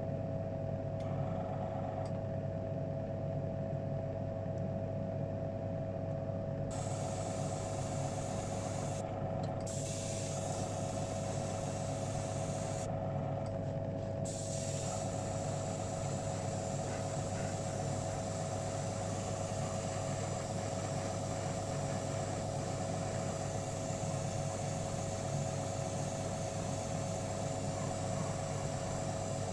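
An airbrush hissing as it sprays paint, switching on about a quarter of the way in, with two short breaks, then running on steadily. Under it, a steady electric motor hum.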